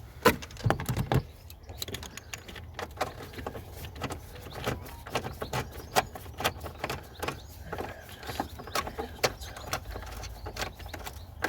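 Hand tools clicking and knocking on a 10 mm bolt in a van's engine bay, with a few louder knocks in the first second, then irregular clicks several times a second as the bolt holding the battery management module is wound in.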